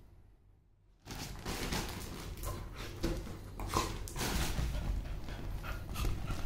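After about a second of near silence, two dogs, a mongrel and a toy poodle, scuffle in play, with rustling, paw thumps and a few short sharp sounds as they scramble off the bed onto the floor.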